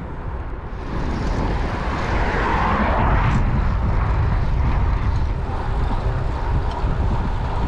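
Wind rushing and buffeting over the camera microphone of a moving gravel bike, with tyre noise on tarmac; it grows louder about a second in.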